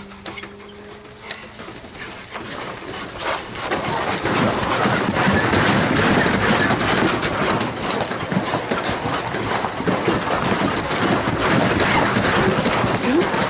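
A large dog running on a homemade wooden carpet mill: a rapid, continuous clatter of paws pounding the carpet belt and the wooden frame and rollers rattling. It gets much louder about three to four seconds in and stays loud.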